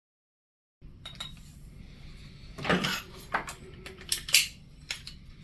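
Dead silence, then from about a second in a low steady background noise with a string of light clinks and knocks of small hard objects, the loudest a little past four seconds in.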